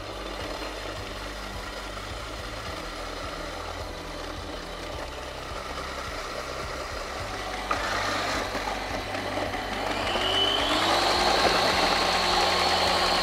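Kenwood Cooking Chef kitchen machine's motor driving its grater attachment, shredding carrot and root vegetables. About ten seconds in, a new load goes through: the motor gets louder with a rising whine that then holds steady.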